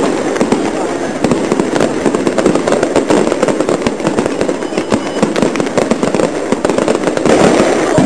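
Fireworks display: a dense, continuous crackling and popping of many small bursts, growing louder near the end.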